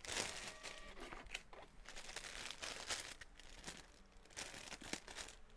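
Plastic bags crinkling and rustling irregularly as packaged clothing sets are handled.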